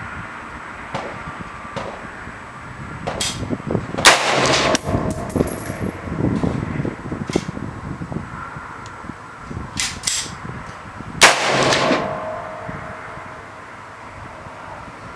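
Two loud AR-15 rifle shots about seven seconds apart, each trailing off in a short echo. Several fainter sharp cracks come in between.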